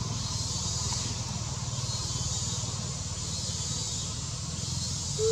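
Steady outdoor ambience: a low rumble under a high hiss, with one short squeak right at the end.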